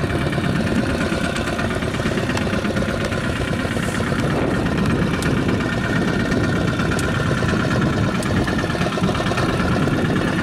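Boat engine idling steadily.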